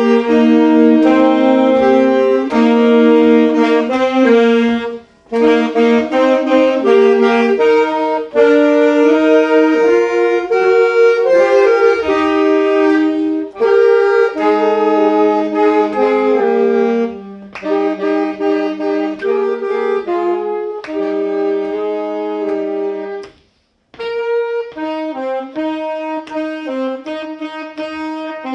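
Section of alto and tenor saxophones played by school pupils, playing a piece together in harmony: chords of held notes in phrases with short breaks, stopping briefly near the end before starting again.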